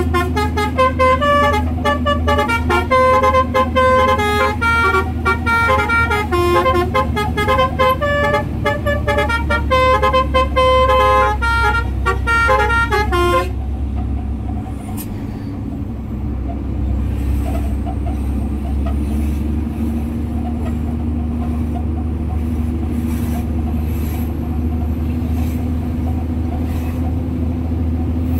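Basuri musical horn on a concrete mixer truck playing a melody of loud tones that step quickly from pitch to pitch. After about thirteen seconds it cuts off suddenly, leaving the steady drone of the truck's engine.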